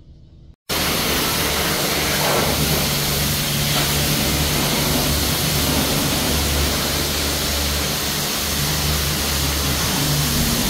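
A pressure washer running in a car-wash bay: a loud, steady hiss of spray over a low machine hum. It starts abruptly less than a second in.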